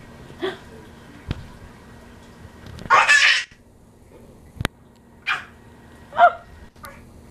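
A dog barking several times in short single barks, the loudest about three seconds in, with a couple of sharp knocks in between.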